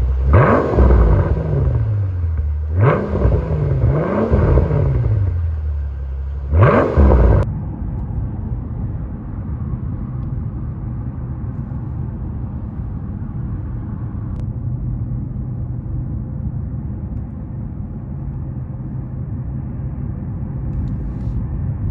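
Mercedes CL65 AMG's twin-turbo V12 running on the road. Its revs climb and fall about four times in the first seven seconds, then it settles into a steady low drone at cruise.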